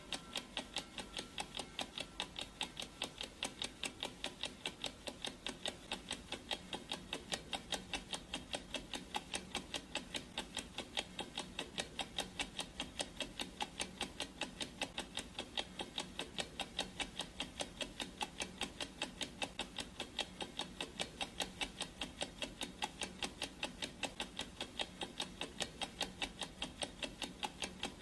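Clock ticking sound effect: a steady, even run of ticks marking time on a countdown timer.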